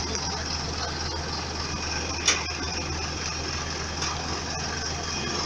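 Diesel engines of an asphalt paver and the tipper truck feeding it running steadily together, with one sharp knock about two seconds in.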